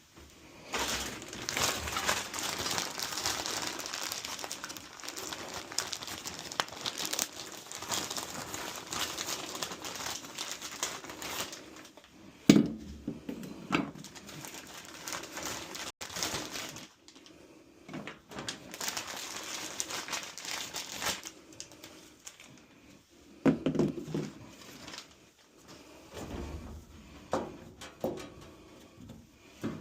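Rustling and crinkling in two long stretches, broken by several sharp knocks and thuds, the loudest about twelve seconds in.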